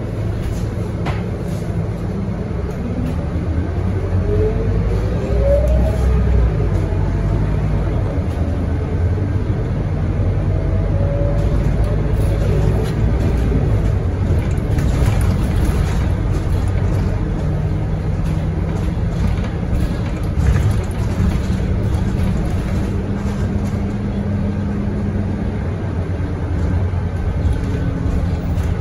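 Scania K230UB single-deck bus's five-cylinder diesel engine heard from inside the cabin, pulling away from a stop and accelerating, with rising whines as it picks up speed a few seconds in, then running steadily as the bus drives along.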